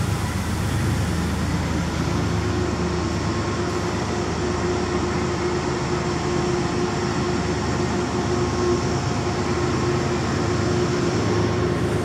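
Metro-North commuter train pulling out and rolling past at close range: a steady rumble with a hum that sets in about two seconds in.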